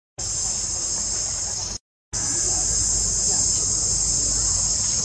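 Steady, high-pitched insect chorus with a low rumble of outdoor ambience beneath it, dropping out to dead silence twice for a fraction of a second, at the very start and about two seconds in.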